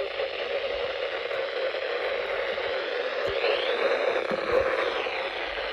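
Steady hiss of radio static, with a faint whistle that rises and falls about three and a half seconds in.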